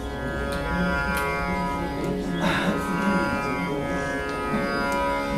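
Indian classical string instruments being tuned: plucked strings ringing over a steady, many-toned drone, with a few sharp plucks standing out.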